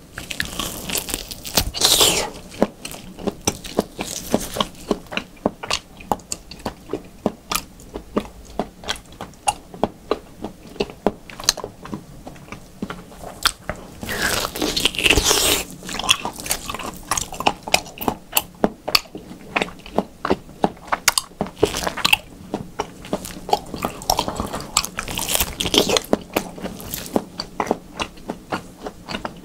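Close-miked biting and chewing of a slab of raw beef: a rapid run of sharp mouth clicks, several a second, broken by a few louder, longer bites, the biggest about halfway through.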